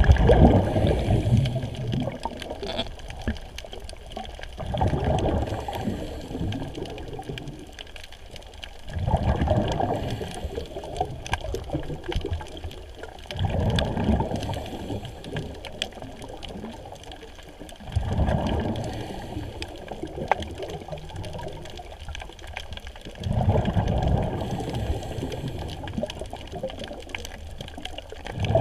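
A diver's breathing heard underwater: a bubbling rush of exhaled air swells and fades about every four to five seconds, six times over.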